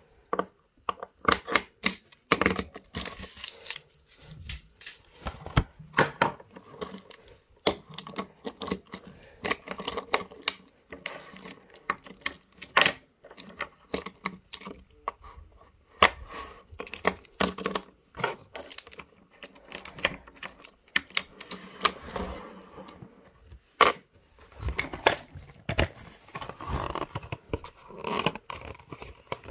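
Wooden toy train engine, wagons and track pieces handled on a tabletop: irregular clicks and clacks of wood knocking on wood. Near the end a cardboard box is handled.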